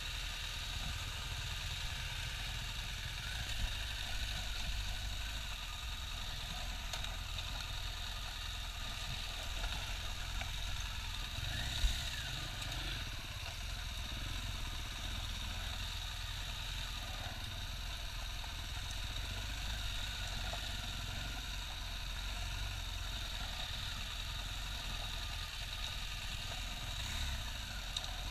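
BMW R1200GS flat-twin (boxer) engine running at low, steady revs on a dirt trail, with a single sharp knock about twelve seconds in.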